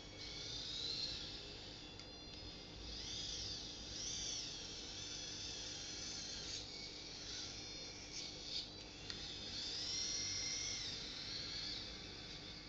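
Small electric drive motors of a 1/50-scale radio-controlled Volvo A40D articulated dump truck whining at a high pitch, the whine rising and falling as the truck speeds up and slows. A few clicks come about two-thirds of the way through.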